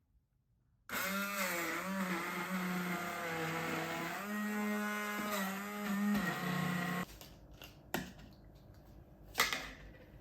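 Electric blender motor running for about six seconds, its pitch dipping and rising as the load changes, then cutting off suddenly. Two short knocks follow near the end.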